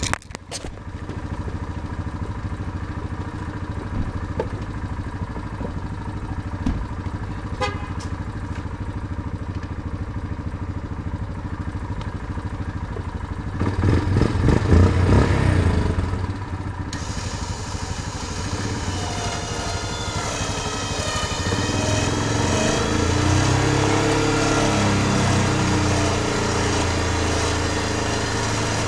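Yamaha Kodiak 450 ATV's single-cylinder engine running steadily, with a louder stretch about halfway through. Then the Warn VRX 25-S winch runs, whining as it reels in its line and pulls the ATV along in neutral, over the engine held at raised revs.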